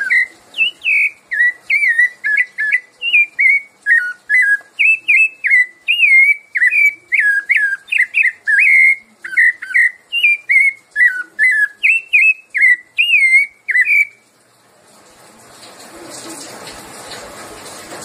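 Rufous-bellied thrush (sabiá-laranjeira) singing its 'piedade' song: a fast run of short, clear whistled notes, about two a second, that stops about fourteen seconds in. A faint hiss follows.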